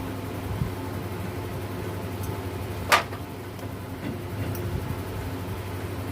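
Metal parts and tools being handled while an alternator is taken apart: a few light knocks and one sharp metallic clink about three seconds in that rings briefly, over a steady background hum.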